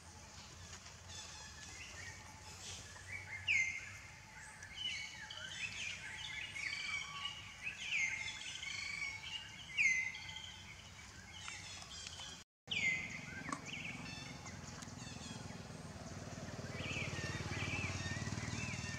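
Outdoor birds chirping over and over, many short falling calls overlapping. A low steady rumble builds up near the end.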